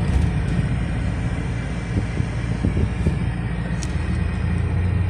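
Car interior noise while driving slowly: a steady low rumble of engine and tyres heard inside the cabin, a little stronger near the end.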